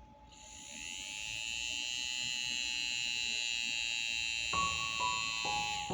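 Small DC motor of a homemade mini table fan whining as it spins up, running steadily at high speed, then winding down near the end. Piano music comes in about four and a half seconds in.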